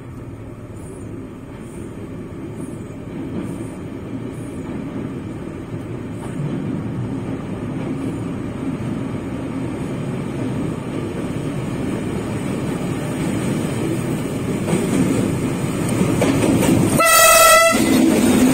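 D20E-012 diesel locomotive approaching out of a tunnel: its engine and wheel rumble grow steadily louder. Near the end it passes close and sounds one short horn blast.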